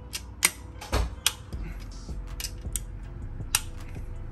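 Several sharp metallic clicks, irregularly spaced, from a click-type torque wrench breaking over at its set torque as tightened bolts are double-checked.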